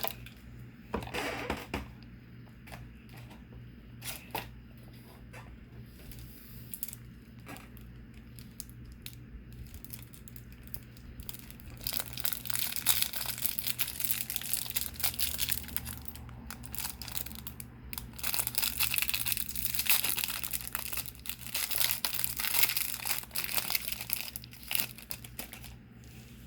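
Plastic shrink wrap being torn and crumpled off a sealed trading-card box: scattered crackles and clicks at first, then dense, louder crinkling through most of the second half.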